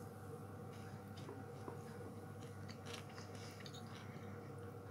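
A person chewing a baked shortcrust-pastry cheese twist: faint, scattered crunchy crackles over a steady low hum.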